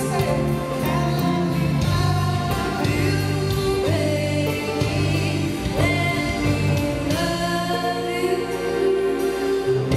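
A singer performing a song with a live band, with sustained, gliding sung notes over a steady bass line. The band includes guitar, saxophone and drums.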